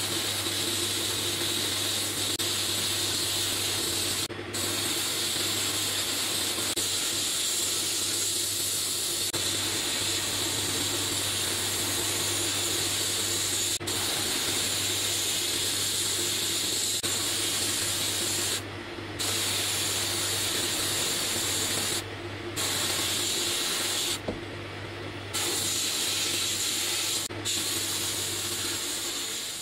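Sandblast cabinet gun blasting rust off small pressed-steel toy truck parts: a loud steady hiss of air and abrasive that stops briefly about five times as the trigger is let off, one of the breaks lasting about a second. A low steady hum runs underneath.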